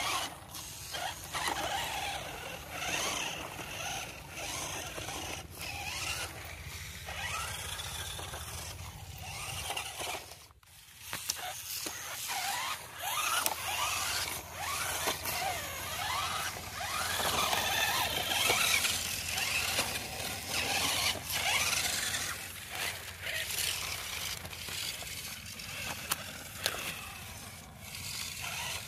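Toy RC rock-crawler trucks' small electric motors and gearboxes whining, the pitch rising and falling over and over as they are driven on and off the throttle, with a short break about a third of the way through.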